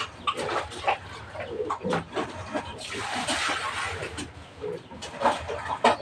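Pigs grunting and squealing in a pen, with water splashing as it is poured over them from about three seconds in for roughly a second.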